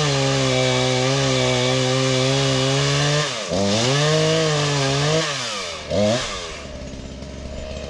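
Two-stroke chainsaw running at high revs cutting wood, its engine note wavering under load. The revs drop about three seconds in and pick up again, drop once more past the five-second mark with a short blip of throttle, then the saw settles to a low idle near the end.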